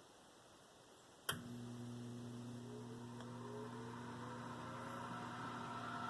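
Whirlpool convection oven's fan motor switching on: a sharp click about a second in, then a steady electric hum. A faint rising whine and a growing rush of air follow as the fan comes up to speed.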